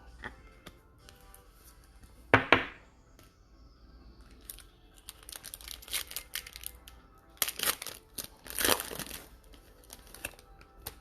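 A trading-card pack wrapper being torn open and crinkled: a sudden loud crackle about two seconds in, then bouts of crinkling and tearing from about five to nine seconds in.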